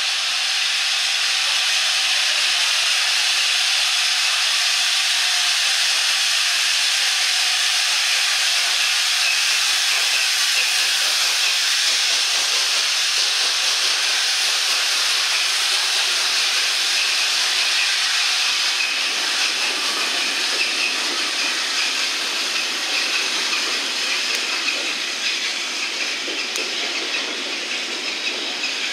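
LNER Class A4 Pacific steam locomotive 4464 Bittern hissing steam steadily as it moves slowly past. From about twenty seconds in, the rumble of its coaches rolling by joins in.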